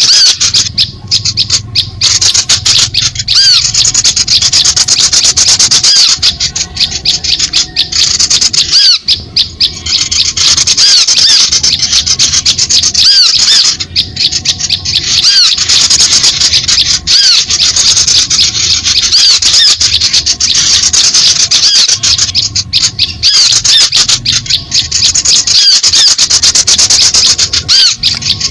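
Bird-lure recording for small songbirds: loud, dense, high-pitched chattering and twittering of many small birds, quick repeated calls layered over one another with only brief dips.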